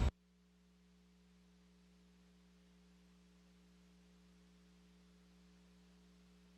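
Near silence: only a faint, steady hum on the broadcast audio line.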